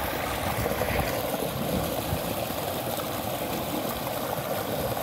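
Creek water rushing and splashing in whitewater over a concrete ledge: a steady, loud rush.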